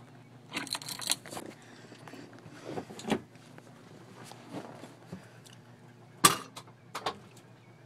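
A 1985 Club Car electric golf cart, its electric drive near silent, with a faint steady hum under scattered clicks, rattles and knocks. The sharpest and loudest knock comes a little after six seconds in.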